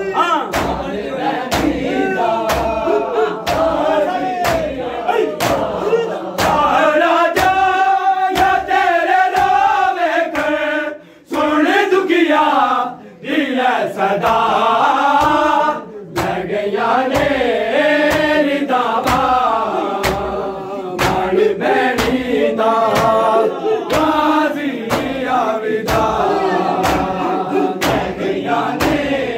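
Group of men chanting a noha (Shia Muharram lament) in unison, kept in time by rhythmic chest-beating (matam) striking about every half second. The chant breaks off briefly twice midway.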